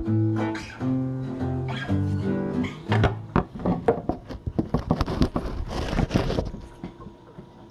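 Acoustic guitar played: a short run of held picked notes, then a stretch of quick, sharp, irregular strokes on the strings that fades down near the end.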